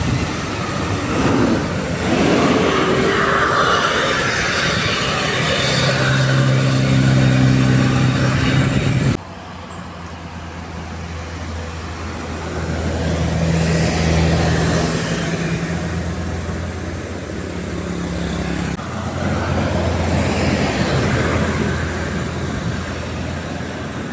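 Large buses driving past with their engines running under road noise, in several short clips that cut off abruptly twice.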